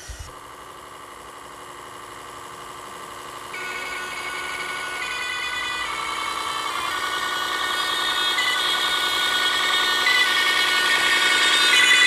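Radio-controlled John Deere 9RX model tractor driving toward the listener: the whine of its electric drive mixes with the simulated engine sound that its onboard sound module plays through a small speaker. It gets steadily louder from a few seconds in as it comes closer.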